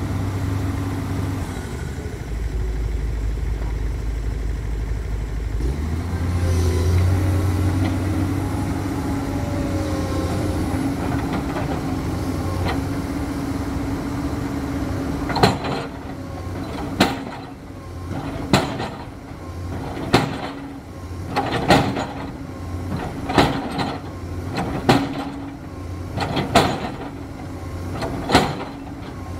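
Komatsu PC210 hydraulic excavator's diesel engine running steadily. From about halfway through, the bucket strikes the top of a steel sheet pile again and again, with a sharp metallic knock about every second and a half, driving the pile into the ground.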